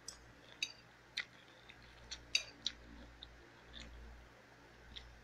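Metal chopsticks clicking as noodles are picked up: a string of sharp, irregularly spaced clicks, most of them in the first three seconds.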